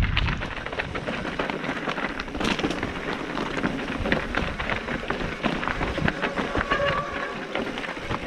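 Mountain bike riding down a rough, rocky trail: tyres crunching over loose stones and gravel, with a steady clatter of small knocks and rattles from the bike over the bumps.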